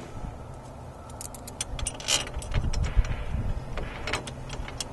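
A string of small metal clicks and clinks as a washer and tamper-proof screw are set into a Thule bike-rack fork block, with some handling knocks, starting about a second in.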